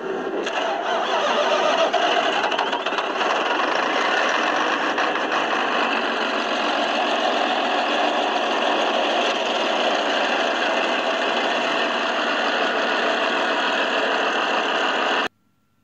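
Caterpillar C9 inline-six common-rail diesel running steadily after an injector replacement. It cuts off suddenly near the end.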